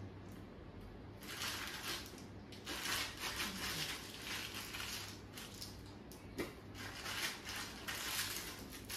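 Clear plastic piping bag crinkling and rustling in irregular bursts as soft cookie dough is pushed and squeezed into it.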